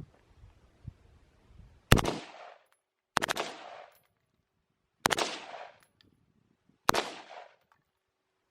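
Gunfire at a shooting range: four short bursts about one to two seconds apart, each a quick cluster of several shots with a fading echo tail.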